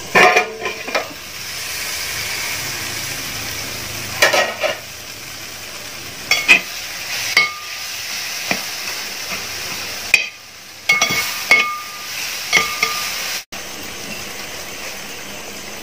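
Tomato-and-onion masala sizzling in a wide metal pot while a metal spatula stirs and scrapes it. Several sharp clinks ring out as the spatula strikes the pot.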